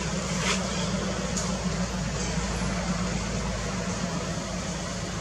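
Steady low rumble and hiss of outdoor background noise, with a couple of faint short clicks about half a second and a second and a half in.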